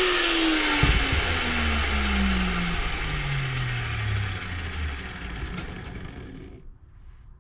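Handheld electric power tool winding down after being switched off: its whine falls steadily in pitch as the motor coasts to a stop, with a knock about a second in, and the sound dies away about six and a half seconds in.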